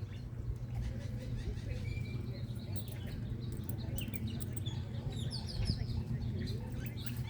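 Birds chirping in short, scattered calls, a quick run of falling chirps about two-thirds of the way through, over a steady low rumble.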